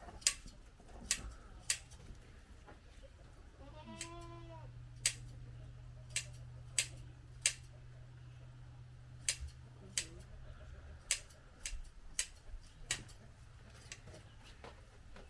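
A sheep bleats once, about four seconds in, while shears make sharp, irregular snipping clicks through the fleece during shearing. A low steady hum runs through the middle stretch.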